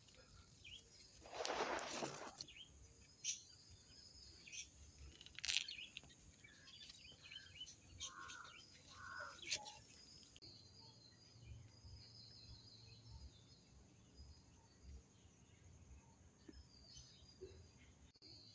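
Quiet outdoor ambience with birds chirping, broken about a second and a half in by a loud burst of noise lasting about a second, followed by a few short sharp clicks.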